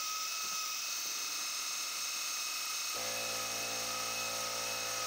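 Converted Grizzly G0704 CNC milling machine running its spindle with a 1/4-inch drill bit during a drilling cycle in an aluminium block: a steady high whine. A lower steady hum joins about three seconds in.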